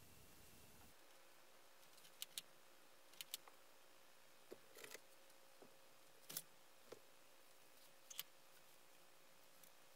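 Near silence in a quiet room: a faint steady hum, with a dozen or so faint, irregular clicks and taps scattered through it.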